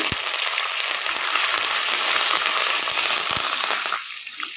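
Fresh curry leaves sizzling and crackling loudly as they hit hot oil, along with frying peanuts, mustard seeds and dals. The sizzle eases off a little near the end.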